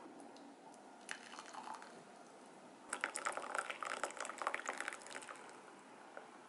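Hot water poured from a kettle into a ceramic mug over a tea bag, splashing and filling for about two seconds from about three seconds in. A few faint clicks come before it.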